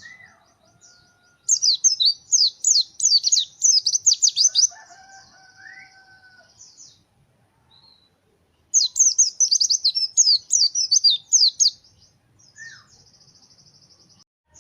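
White-eye (pleci) song: two runs of rapid, high, sharply falling chirp notes, each lasting two to three seconds, followed near the end by a short thin high trill. Fainter, lower whistled calls sound in between.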